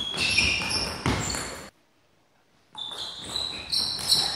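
Table tennis rally: the ball clicking off bats and table, with short high squeaks of players' shoes on the wooden floor. The sound drops away for about a second midway.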